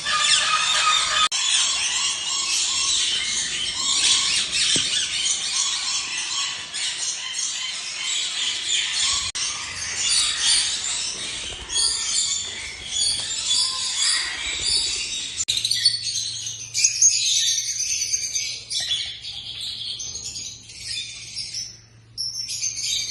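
Many small cage birds chattering and chirping together in an aviary: a dense, busy high twittering, with a brief lull near the end.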